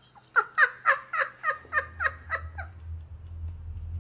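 A man laughing hard in a fast run of short 'ha-ha' bursts, about nine in two and a half seconds, trailing off. A low steady hum comes in about halfway through.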